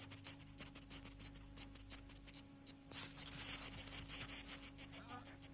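Faint cricket chirping, a steady series of short high chirps about three a second, with a brief scratchy hiss about three seconds in.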